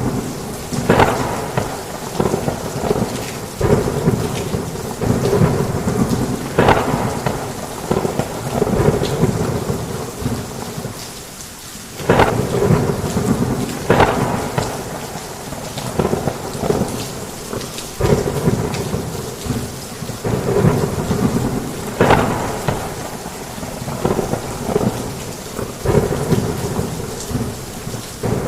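Heavy rain with thunder rumbling continuously and frequent sharp cracks every second or two. The rumble eases briefly a little before halfway, then a loud crack comes in.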